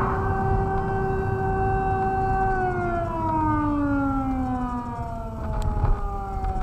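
A mechanical fire siren sounding one steady tone, then winding down in a slow falling glide from about two and a half seconds in, over low vehicle rumble.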